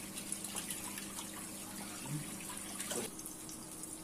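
Flattened patty of ground-meat stuffing sizzling and crackling in hot oil in a nonstick frying pan. About three seconds in there is a brief knock as a perforated metal splatter screen is set on the pan.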